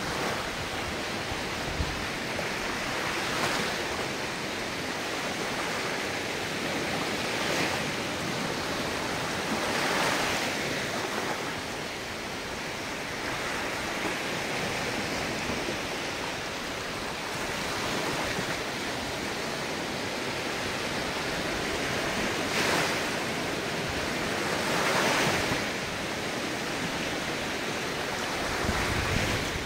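Ocean surf: a steady rush of water with waves swelling and breaking every few seconds.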